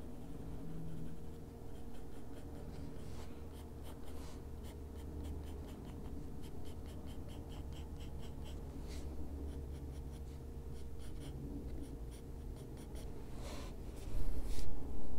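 A Derwent Drawing pencil in Chinese White scratching on the paper of a colouring-book page in quick short strokes as highlights are laid in. There is a louder rub near the end, and a steady low hum underneath.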